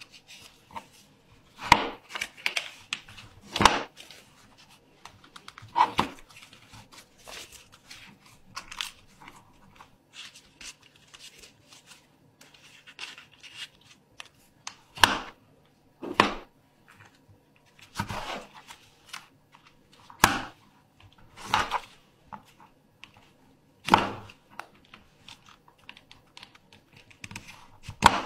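Origami paper being folded and creased by hand on a cutting mat: sharp papery crinkles and swishes every one to three seconds, with faint rustling in between.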